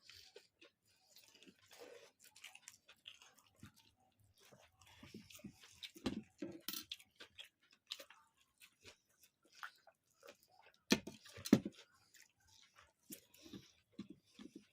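Close-up eating sounds: chewing with scattered wet mouth clicks and smacks, and two louder smacks about two-thirds of the way through.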